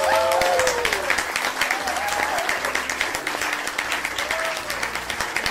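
Audience applauding, a dense steady clapping, with a few voices calling out over it near the start, about two seconds in, and again later.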